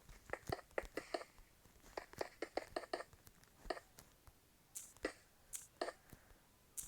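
Someone chewing close to the microphone: irregular soft clicks and small crunches with occasional brief rustly hisses.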